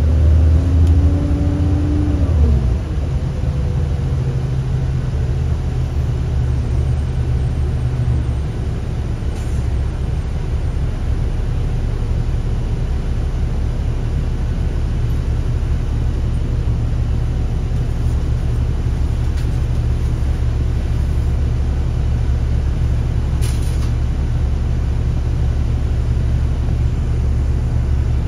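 2005 New Flyer D40LF city bus's Cummins ISL diesel and Allison B400R automatic drivetrain, heard from inside the cabin. Its pitch rises as it accelerates, drops away about two and a half seconds in, and then settles into a steady low rumble.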